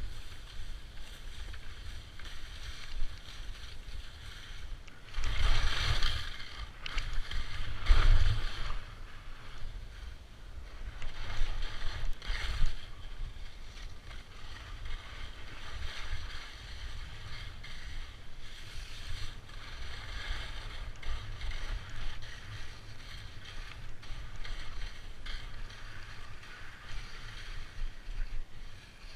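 Wind rushing over the microphone while skiing downhill, with the hiss of sliding over snow. Louder surges come about five seconds in, again near eight seconds and near twelve seconds.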